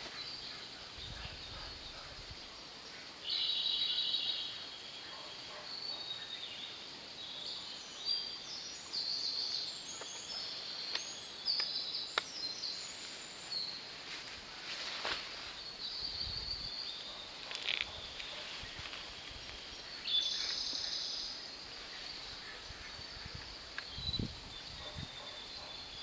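Wild birds calling in a forest: repeated high chirps and short trills from several birds, with a louder trill about three seconds in and another around twenty seconds in.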